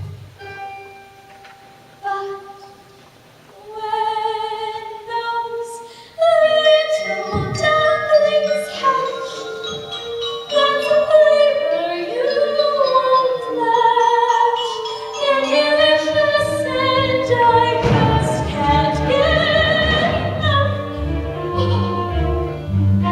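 A stage-musical song with singing over accompaniment. It opens with a few seconds of soft held notes, grows into fuller singing about six seconds in, and a low pulsing beat joins past the middle.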